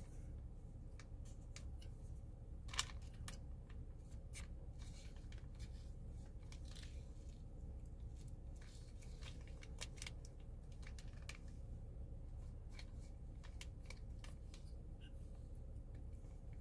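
Irregular crisp crunches and crackles of something brittle being chewed, with a sharper crack about three seconds in, over a steady low hum.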